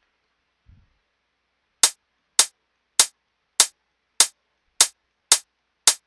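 LMMS's preset closed hi-hat sample played eight times in a steady rhythm, about one hit every 0.6 s, each a short bright tick. It is being auditioned through an equalizer that cuts its low end below 1 kHz.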